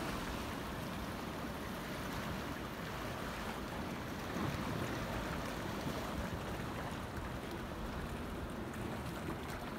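Steady seaside ambience of wind and gently washing sea: an even hiss with a low rumble underneath.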